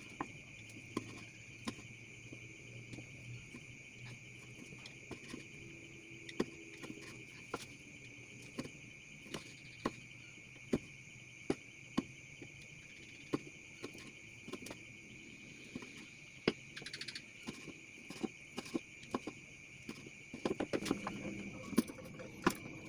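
Knife blade tapping on a wooden cutting board while dicing meat, sharp irregular taps about once a second that come thicker near the end. A steady high chirring of crickets runs underneath.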